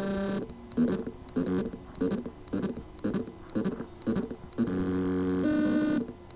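Seagate Barracuda Compute 3.5-inch hard drive's spindle motor buzzing in short pitched pulses about twice a second, with a longer steady buzz near the start and another near the end. The motor is trying to spin but cannot reach full speed: the symptom of loose motor contacts on the drive's circuit board.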